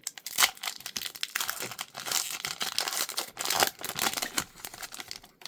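Foil wrapper of a Pokémon TCG booster pack being torn open and crinkled in the hands, a dense run of crackling and rustling that stops abruptly near the end.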